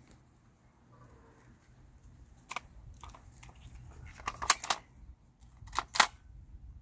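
Pruning shears snipping tendrils off a grapevine shoot: a few sharp snips spaced apart, then a quick cluster of them, with the loudest two near the end.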